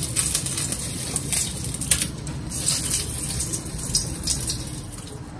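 Whole spices, bay leaves and cardamom pods, sizzling in hot oil in a wok, with irregular crackles and pops.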